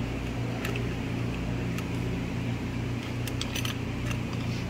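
A few light metallic clicks as two flat screwdrivers pry a hub along a transmission output shaft, over a steady low hum.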